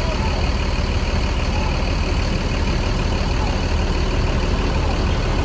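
Diesel bus engine running steadily, a deep even rumble.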